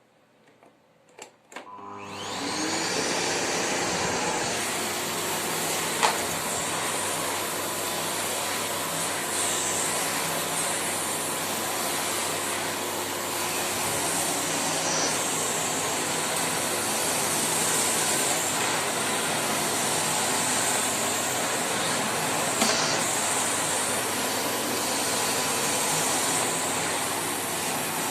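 Samsung Anti-Tangle VC18M21C0VR canister vacuum cleaner switched on about two seconds in after a few clicks, spinning up and then running steadily. Two short sharp clicks cut through the motor noise, one early and one near the end.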